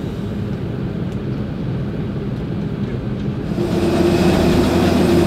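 Airliner cabin hum, steady and low. About three and a half seconds in it changes to louder jet aircraft noise heard outside the plane, a steady rush with a humming tone.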